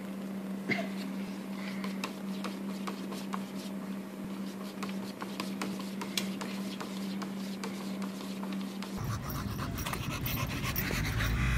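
Light sharp taps of a cat's paws against a TV screen over a steady low electrical hum. About nine seconds in the hum stops and gives way to low rumbling noise and several dogs panting.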